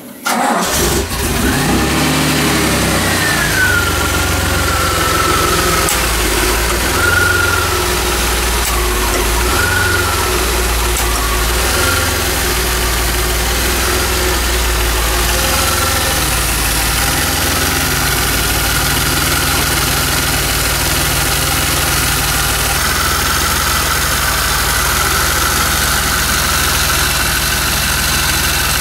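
DeLorean DMC-12's 2.85-litre PRV V6 catching about a second in from a cold start, then idling steadily. A high whine falls in pitch over the next few seconds and then holds. The engine is being run to warm the cooling system so the remaining air can be bled out.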